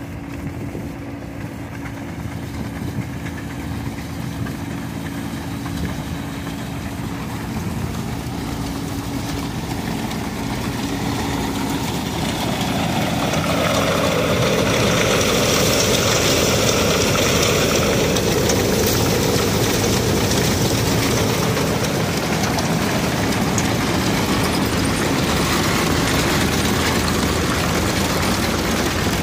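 Belt-driven threshing machine running: a steady mechanical rumble and rattle of its belts, pulleys and shakers, with straw rushing through the blower. It grows louder and fuller from about halfway in and then stays steady.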